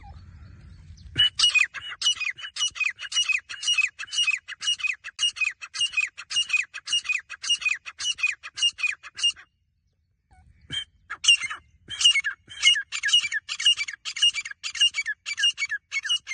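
Grey francolin (desi gora teetar) calling: a rapid, even series of harsh, squawking notes, about three a second, which breaks off for a second or so past the middle and then starts again.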